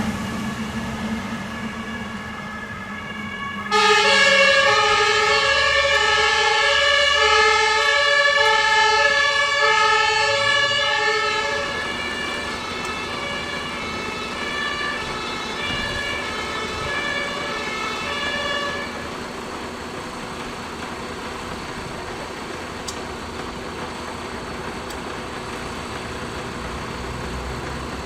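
Fire engine's two-tone siren, switching back and forth between a high and a low note about once a second. It comes on suddenly and loud about four seconds in, grows fainter from about twelve seconds as the vehicle pulls away, and stops near the two-thirds mark. After that, steady engine and traffic noise.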